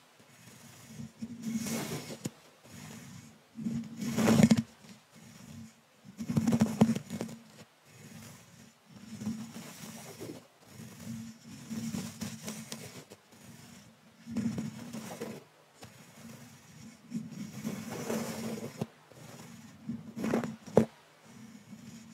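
A thin brush stroked and scraped against the metal mesh grille of a microphone, heard very close up. The strokes are soft and irregular, about one every second or two, and a few are louder than the rest.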